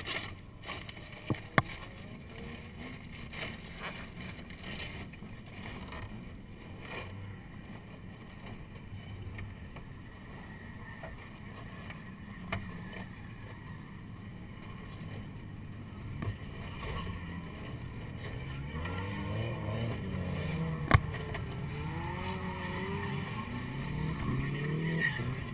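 Car engines: a low steady drone, then from about two-thirds of the way in, engines revving with pitch repeatedly rising and falling. One sharp knock near the end.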